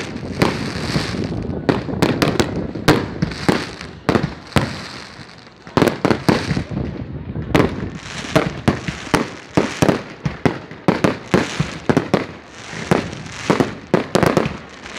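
Fireworks going off overhead: a quick, irregular run of sharp bangs with crackling and hissing between them.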